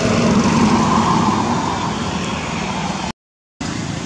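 Loud steady rushing background noise that swells in the first second or so. Near the end it cuts out to silence for about half a second, then returns.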